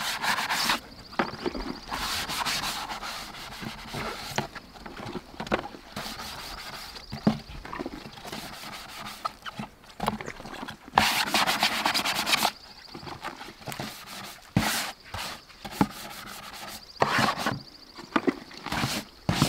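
Hand scrub brush scrubbing a plastic bath pan with soapy water, in irregular bursts of rubbing strokes, the most vigorous stretch a little past the middle.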